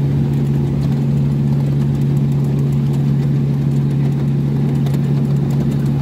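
Miniature railway diesel locomotive's engine running at a steady, unchanging pitch as it hauls the passenger train, a constant low drone.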